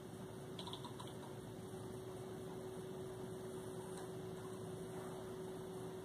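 Low room tone with a steady electrical hum, and a few faint ticks about a second in and again near the middle.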